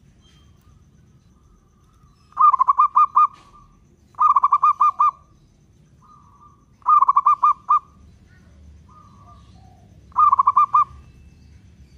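Zebra dove (local perkutut) singing its cooing song: four phrases, each a quick run of about four or five rapid coos, with softer short coos between the phrases.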